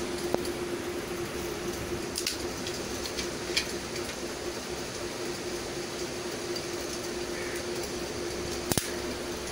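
Steady background hum and hiss with no speech, broken by a few faint clicks, the sharpest a quick double click near the end.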